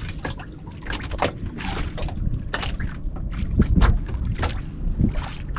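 Sea water lapping and splashing against a small outrigger boat, with wind buffeting the microphone. The wind rumble is strongest a little past halfway.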